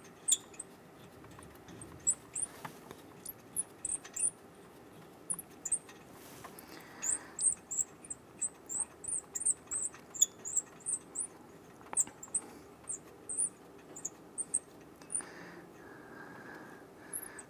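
Faint, high-pitched squeaks, two or three a second, with a few light clicks, as a loosened nut is spun off a rusty catalytic converter stud by a gloved hand.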